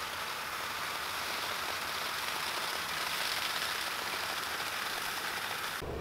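Water spray pouring down on an elephant and the ground, a steady rain-like hiss. It cuts off abruptly near the end.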